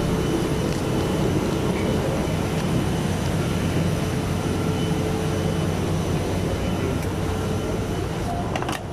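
Steady rush and low hum of an airliner cabin during boarding. A short sharp click comes near the end.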